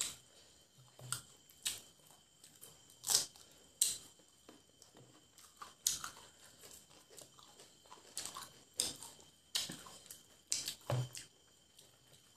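Fried chicken legs torn apart by hand and chewed, heard as irregular crisp crunches and crackles, a few every second.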